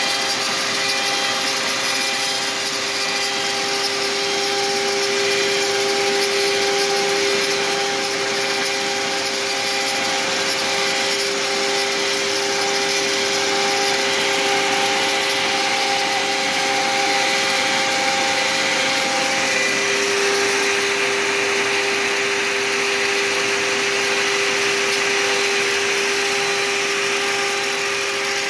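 HY6040 CNC router spindle spinning a 1/8" single-flute end mill at 15,000 RPM as it cuts a black sheet, a steady whine with a few held tones, together with the steady rush of a vacuum drawing the chips away through a shroud on the spindle. The whine and hiss shift slightly about two-thirds of the way through as the cut goes on.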